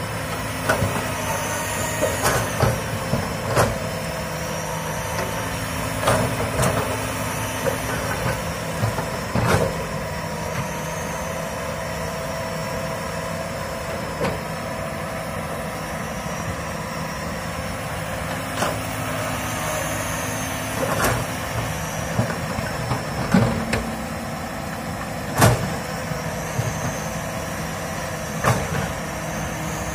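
Komatsu PC200 hydraulic excavator's diesel engine running steadily, with sharp knocks every few seconds.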